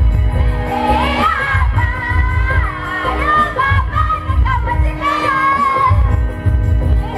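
Group of voices singing a song together over a steady, regular beat on a mandar, a double-headed clay barrel drum.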